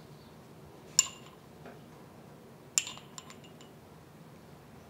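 Metal chopsticks clinking against a small glass jar of ground white pepper: two sharp clinks, about a second in and just before three seconds, then a few lighter taps.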